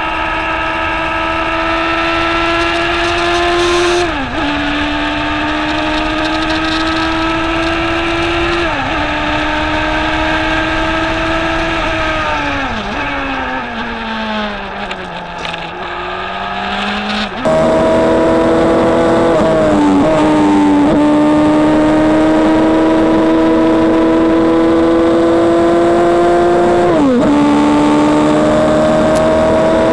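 Single-seater race car engine heard onboard, revving up through the gears with two quick upshifts. The revs then fall in steps as it brakes and downshifts for a corner. After a sudden jump in loudness the engine pulls hard again, rising with two more upshifts.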